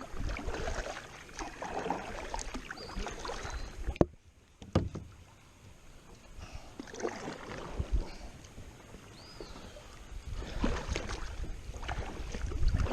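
Kayak paddle strokes splashing in river water, with a sharp knock about four seconds in followed by a quieter stretch before the splashing resumes.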